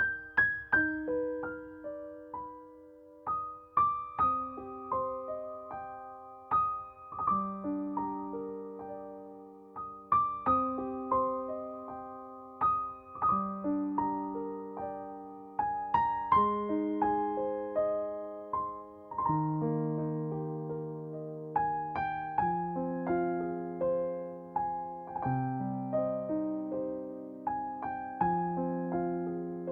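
Background music: a slow, gentle piano melody with single notes struck and left to ring and fade.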